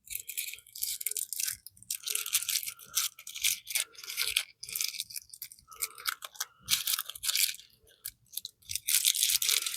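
Plastic and foam packaging crinkling and rustling in irregular bursts as wrapped statue parts are unwrapped by hand.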